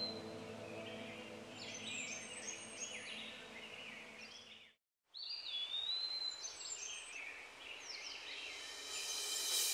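Birds chirping and whistling, over a soft sustained musical drone in the first half. The sound cuts out briefly near the middle, then the birdsong resumes, with a rising hiss toward the end.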